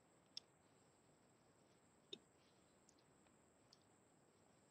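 Near silence broken by a few faint computer mouse clicks, the clearest about half a second in and about two seconds in.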